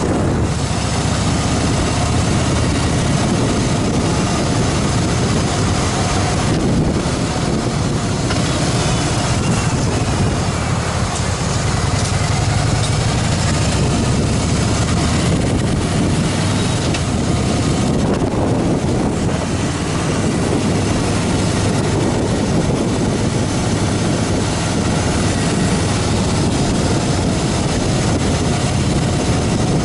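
Harley-Davidson Fat Boy's V-twin engine running steadily on the move, under a loud, even rush of wind and road noise.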